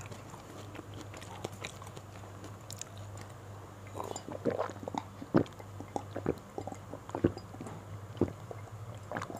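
A person gulping a drink from a glass: a run of short swallowing sounds, about one a second, beginning about four seconds in.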